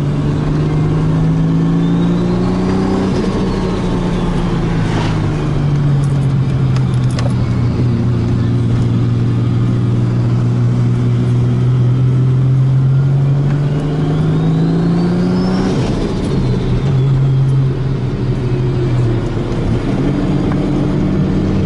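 Turbocharged car engine pulling hard through the gears. Its pitch climbs, drops at a gear change about three seconds in, climbs again through a long pull and drops at another shift about sixteen seconds in. A high whistle rises and falls with each pull.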